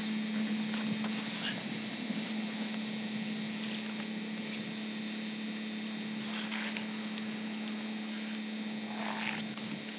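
Steady low hum with hiss, the noise a battery camcorder's own tape mechanism lays onto its recording. Two faint brief sounds come through about six and a half and nine seconds in.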